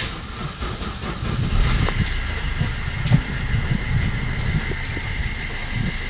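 Maruti Suzuki Ciaz engine restarting with the push-start button, now working after a replacement keyless controller module was fitted and programmed. It starts about a second and a half in and then idles steadily, with a steady high whine alongside.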